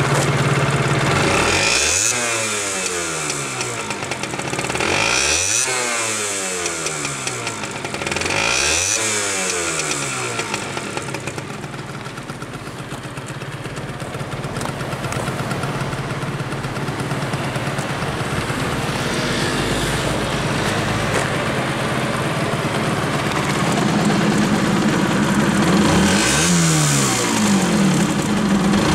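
Honda NS-1's 50cc two-stroke single running on its stock exhaust, revved three times in quick succession and dropping back toward idle after each. After a long steady stretch it is revved once more near the end.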